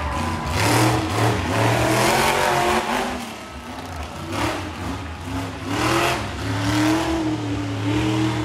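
Monster truck engine revving hard in repeated bursts, its pitch climbing and dropping several times as the truck drives across the dirt arena.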